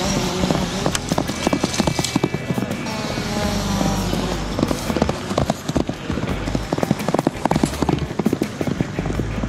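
Horses galloping on a dirt ground: a quick, uneven run of hoofbeats throughout, with some music and voices underneath.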